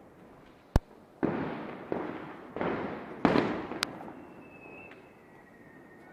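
Fireworks going off: a sharp bang, then four hissing bursts that each fade over about half a second, and another sharp crack. A faint whistle falls slightly in pitch near the end.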